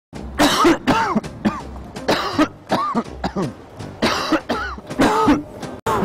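A person coughing hard and repeatedly: about six loud, hacking coughs spread over several seconds, each with a rough voiced edge. The coughing stops abruptly just before the end.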